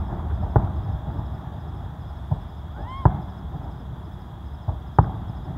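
Aerial fireworks shells bursting: a series of about five sharp booms, the loudest about three seconds in, over a steady low rumble. A brief rising whistle comes just before the loudest boom.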